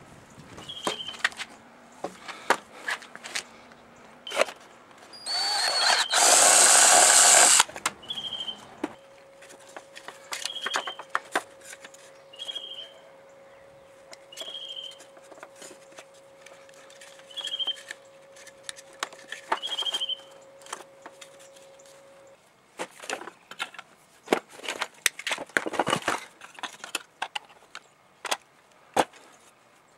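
DeWalt 18-volt cordless drill drilling into a plastic battery-pack shell: it speeds up, runs loud for about two seconds and stops. Scattered clicks and knocks of tools being handled come before and after it.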